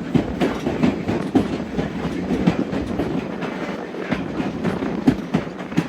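Narrow-gauge passenger railcar rolling along the track: a steady rumble with sharp, irregular clicks and knocks from the wheels and couplings, several a second.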